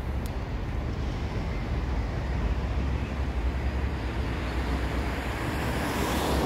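Low, steady rumble of road traffic, with a vehicle passing and swelling louder near the end.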